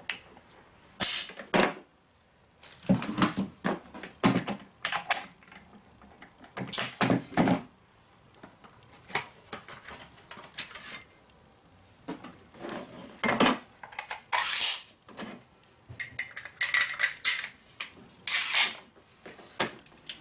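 Irregular metal clanks and clatter of pneumatic nailers and hose fittings being handled and set down on a wooden pallet, with a few short hissing bursts of air as the coil hose's quick coupler is swapped between nailers. The compressor motor is not running.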